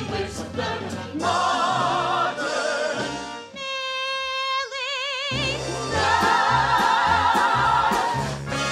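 Musical theatre number: a group of singers with instrumental accompaniment. About three and a half seconds in the accompaniment drops out and a lone voice holds a high note with vibrato, then the singers and band come back in louder about two seconds later.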